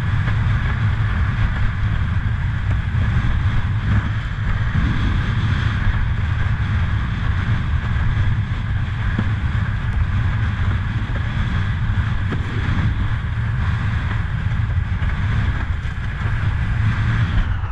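Wind buffeting the microphone of a windsurfer's action camera: a steady heavy rumble. Under it is the hiss of water rushing past the board as it sails over chop.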